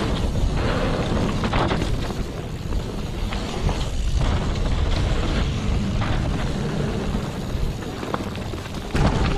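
Mountain bike riding down a dirt downhill trail: a steady low rumble of wind buffeting the camera microphone, mixed with tyre noise and irregular knocks and rattles from the bike over the ground.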